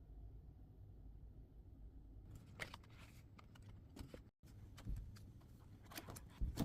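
Faint handling of a hardcover book: scattered paper rustles and light taps begin a little over two seconds in, with the loudest taps near the end.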